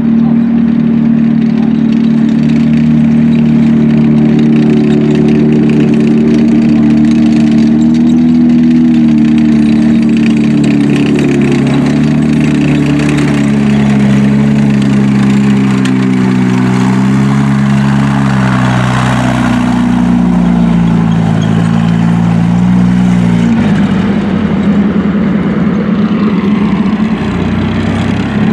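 M4 Sherman tank driving past close by, its engine running loud with the pitch wavering up and down as it changes speed, and its tracks rattling as it goes by. A few seconds before the end the engine sound changes and drops lower.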